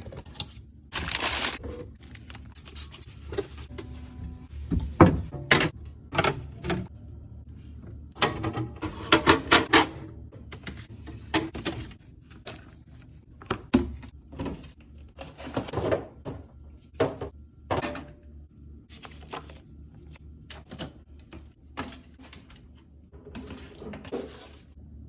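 Irregular clicks, knocks and clatter of containers and items being handled and set down, with a quick run of small rattling strikes near the middle.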